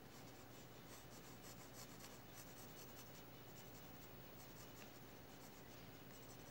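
Faint scratching of pencil lead on drawing paper in quick short strokes, as a portrait is shaded.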